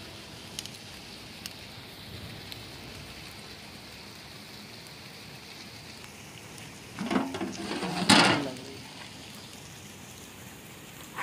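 A steady hiss, then about seven seconds in a wide metal lid scraping and clanking against the rim of a large metal cooking pot, with a second, loudest clank about a second later as the lid is set down.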